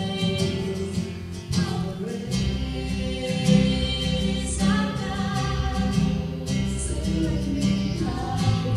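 Live gospel worship song: a woman singing over a strummed acoustic guitar and an electric guitar. A strong low bass part comes in about two seconds in.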